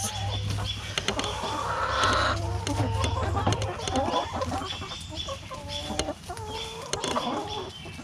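A flock of backyard hens clucking as they feed on greens tossed into their run.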